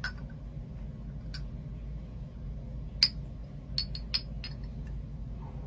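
A glass hot sauce bottle clinking lightly against a small shot glass as sauce is shaken into it: a few sharp ticks, most of them in the second half, with one clearer clink about three seconds in.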